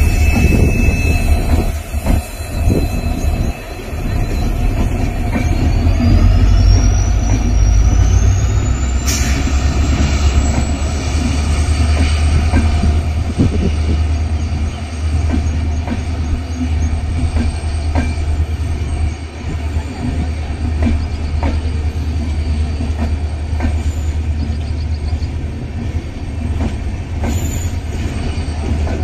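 LHB passenger coaches rushing past at speed: a steady, loud rumble of wheels on the rails with scattered sharp clicks. A thin, high squeal glides upward about five seconds in and then holds.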